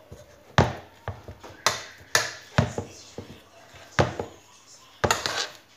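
Spoon beating thick choux pastry dough in a stainless steel saucepan, knocking against the pan about twice a second, with a pause near the middle, as an egg is worked into the dough.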